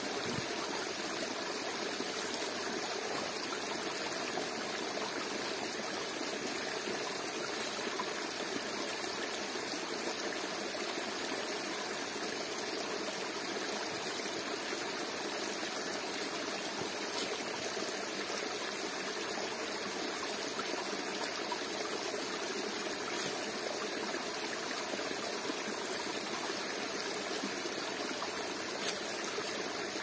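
Waterfall and its stream running steadily, an even, unbroken rush of water. A single small tap sounds near the end.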